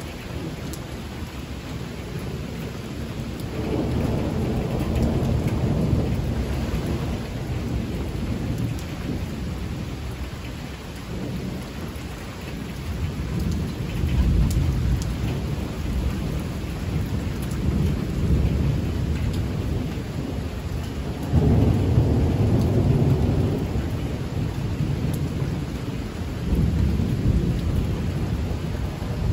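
Thunder from a severe thunderstorm rumbling in several long rolling swells over steady rain.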